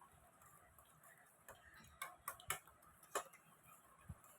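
A spoon stirring a slime mixture in a bowl, giving a few light, irregular clicks and taps against the bowl's side.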